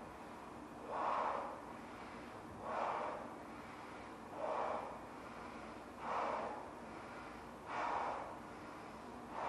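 A man blowing up a large balloon by mouth: five deep breaths, about one every second and a half, each a swell of rushing air.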